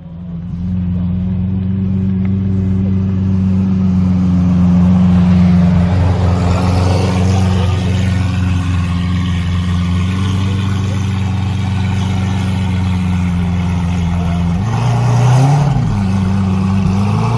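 Lamborghini Aventador SVJ's V12 engine running at a low, steady idle as the car creeps along. It gives a couple of short revs near the end, the pitch rising and falling each time.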